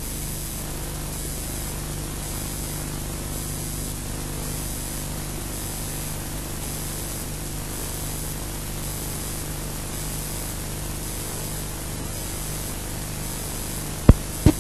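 Steady hiss with a low electrical hum from the recording or sound system. Near the end come two sharp, loud clicks.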